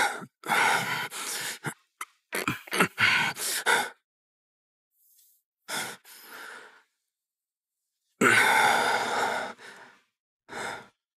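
A person's breathy vocal sounds: a series of gasps and sighs, about five separate breaths, the longest about eight seconds in.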